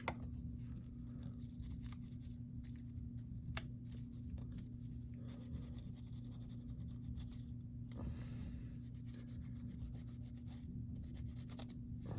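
Faint rubbing and scratching with scattered small clicks, as a small tool works at an opened phone's power-button contacts, over a steady low electrical hum.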